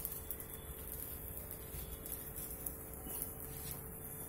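Quiet room tone: a steady low hum with a few faint ticks.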